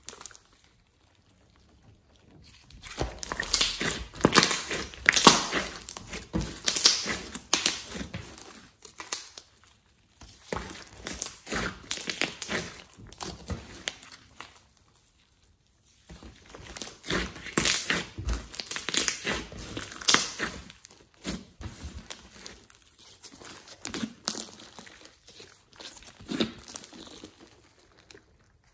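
Hands stretching, squeezing and folding glossy slime, making dense wet clicking and crackling in long bursts. There is a short pause near the start and another about halfway through.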